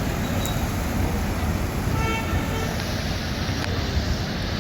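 Steady rumble of vehicle engines and traffic, with a vehicle horn sounding once for about half a second around two seconds in.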